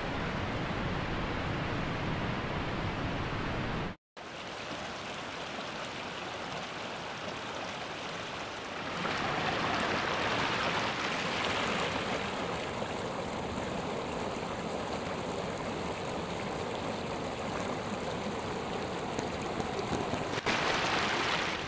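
Havasu Creek running fast over rocks in a shallow riffle: a steady rush of water. It cuts out for an instant about four seconds in, and it is louder for a few seconds near the middle and again near the end.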